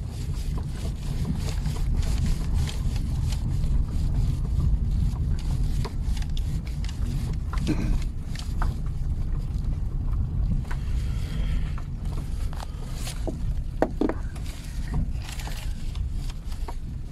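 Steady low rumble of a car driving slowly along a rough track, heard from inside the cabin, with scattered clicks and a few short calls over it.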